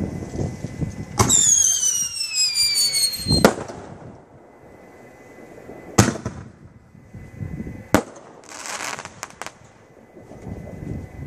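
Fireworks going off. About a second in, a whistling firework gives a loud whistle that falls in pitch for about two seconds and ends in a sharp bang. Two more single bangs follow about two seconds apart, then a short hiss with a few pops.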